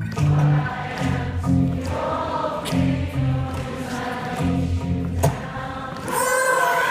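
A concert audience singing together like a choir over acoustic guitar, with scattered finger clicks; the voices swell louder near the end.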